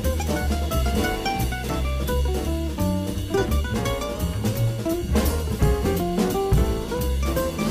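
Background jazz music with a drum kit keeping a steady beat over a bass line.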